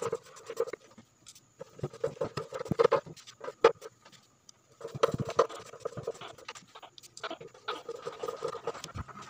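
Hand screwdriver driving the mounting screws of a speaker driver into a plastic speaker housing: several runs of rapid clicking and grating as each screw turns, with short pauses between.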